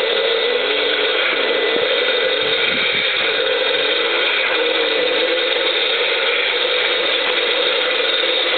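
RC rock crawler's Novak 45-turn brushed motor and homemade aluminium gearbox running with a steady gear whine and rattle. The pitch wavers up and down as the throttle changes.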